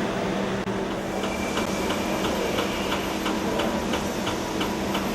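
Machine tool running while machining a valve body: a steady hum, joined about a second in by a high whine and a regular tick about three times a second.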